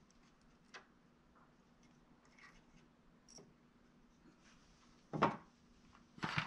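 Hand tools handled on a plywood turntable: faint small clicks and rubs, then two short wooden knocks about five and six seconds in, as a hammer and a wooden dowel are set down on the board.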